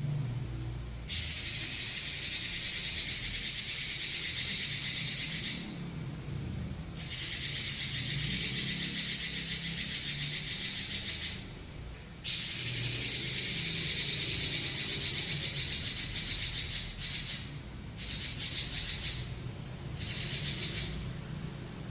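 Red-billed leiothrix (Pekin robin) singing long, fast rolling trills: three long runs of several seconds each with short breaks between them, then a few shorter runs near the end.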